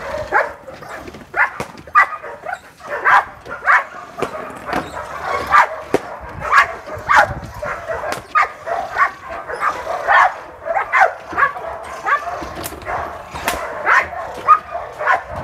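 Young Belgian Malinois barking repeatedly, a little over one bark a second, the drive barking of a dog on a tie-out being agitated by a decoy in protection training.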